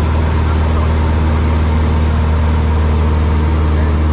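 Single-engine light aircraft's engine and propeller running steadily in cruise, heard inside the cockpit: a strong low hum with a stack of steady tones above it.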